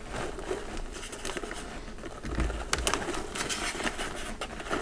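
Plastic bag of shredded cheese crinkling as it is shaken over the pot, with scattered crisp crackles and a light patter of shreds falling onto the pasta.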